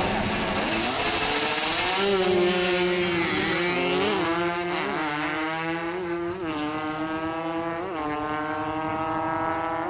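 Two small drag-racing motorcycles launching off the start line and accelerating hard down the strip, their engines climbing in pitch and dropping back at each gear change, several shifts in a row.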